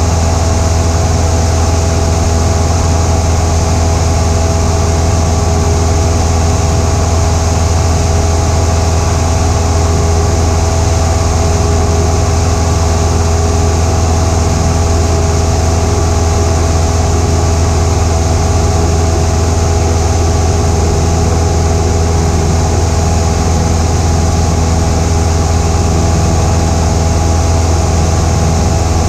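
Cessna 172's single piston engine and propeller running steadily at cruise power, a loud, unchanging low hum with steady tones above it, heard from inside the cabin.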